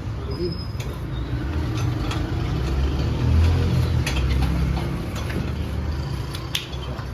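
An engine running with a low, steady rumble that swells in the middle and eases off, with a few light clicks and taps.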